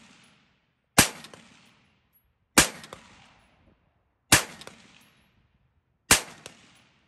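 Windham Weaponry 20-inch M16A4-pattern 5.56 mm rifle firing four aimed semi-automatic shots, one every second and a half or so. Each shot echoes and dies away within about a second.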